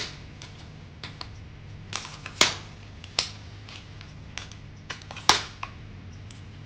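Sharp plastic clicks and snaps from a Tripod 3120's leg locks being opened and its leg sections pulled out, several clicks at uneven intervals, the loudest about two and a half and five seconds in.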